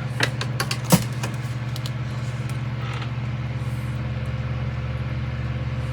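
A few sharp clicks and light rattles of small plastic model parts being handled, the loudest about a second in, over a steady low hum that runs throughout.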